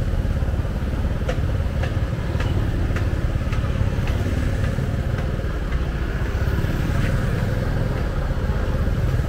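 Motorbike traffic: a steady low rumble of motorbike engines, with faint ticks about twice a second in the first half.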